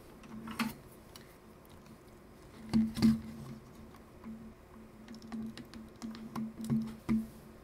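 A small tool prying at the plastic film-door hinge of a Nikon One Touch L35AF2 compact camera: scattered small clicks and scrapes, the loudest two about three seconds in.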